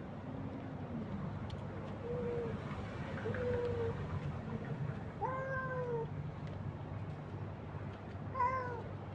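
Cats meowing, about five separate short calls that rise and fall in pitch, the loudest about five seconds in.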